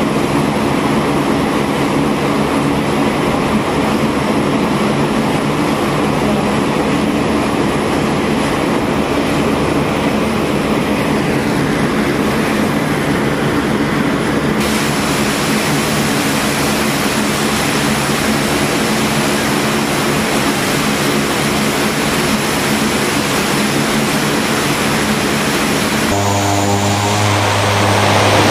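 C-130 transport's four turboprop engines and propellers running, a steady loud drone. The sound shifts abruptly about halfway through and again near the end, where it grows louder.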